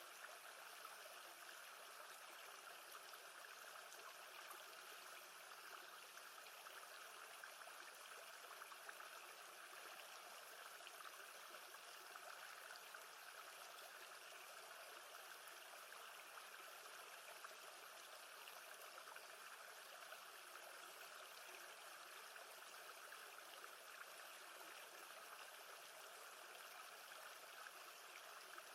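Faint, steady wash of lake water, an even rushing hiss without breaks or splashes.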